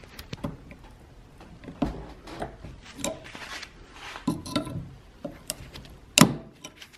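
Pliers prying and scraping at the corroded washer and old bushing in an Audi Quattro shift-linkage lever: scattered metal clicks and scrapes, with one sharper click about six seconds in.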